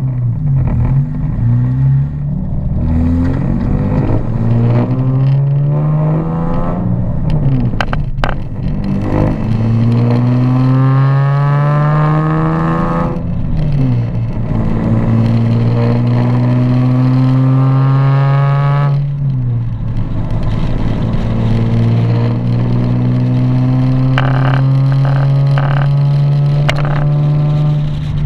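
Nissan 370Z's 3.7-litre V6 pulling through the gears: the engine note climbs, drops at shifts about 13 and 19 seconds in, then holds steady while cruising. A few short clicks about 8 seconds in and a quick run of knocks near the end may be the rattle the owner is trying to trace.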